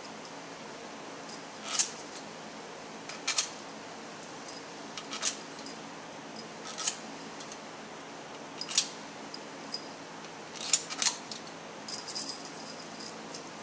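Steel valve-body bolts clinking as they are set one by one into the bolt holes of a BMW ZF5HP24 transmission valve body: a sharp metallic click every second or two, with a quick run of lighter ticks near the end.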